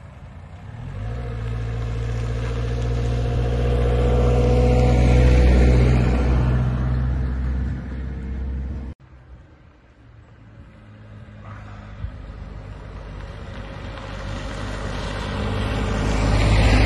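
A motor vehicle's engine running with a steady low hum, growing louder for several seconds and then cutting off abruptly about halfway through. A white panel van then approaches and passes close by, its engine and tyre noise building to the loudest point near the end.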